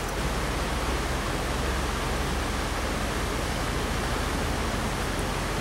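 Steady rush of a shallow stream running over rocks and riffles.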